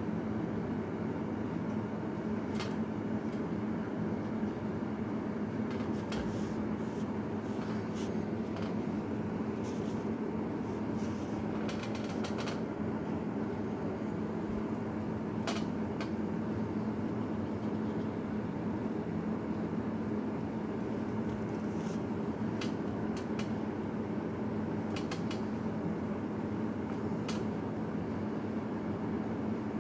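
Steady droning hum with a low tone in it, with scattered light clicks and taps every few seconds.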